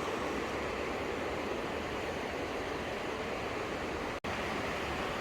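Steady rush of Burney Creek's fast-flowing water below a footbridge, an even hiss with no pauses except a brief dropout about four seconds in.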